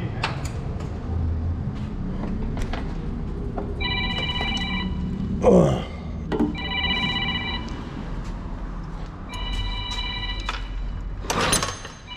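A phone ringing with a trilling electronic ring: rings of about a second each, repeating every two to three seconds over a low background hum. A short loud falling sound breaks in about halfway through.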